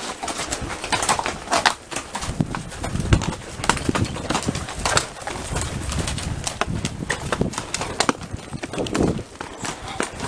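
Horses' hooves clopping and knocking irregularly on rock and loose stone as several horses walk down a rocky trail.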